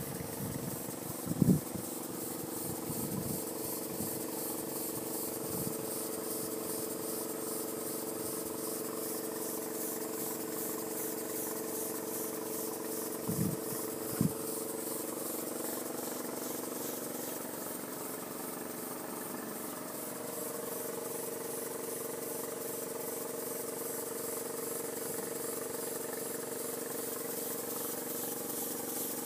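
Model V4 double-acting oscillating steam engine running on compressed air: a steady hum with a rapid, even hiss of exhaust puffs. Its pitch sags slightly for a few seconds past the middle, then recovers. A few low thumps, the loudest about a second and a half in.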